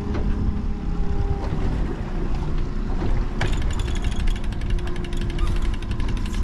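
A fishing reel's ratchet clicking rapidly and evenly, starting about halfway through, while a hooked salmon is being fought. A steady low rumble from the boat runs underneath.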